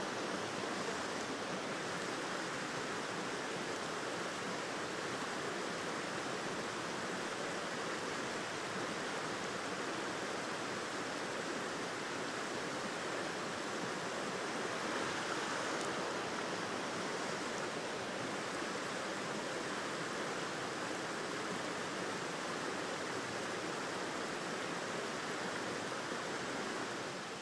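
Shallow river running low over rocks: a steady rush of water.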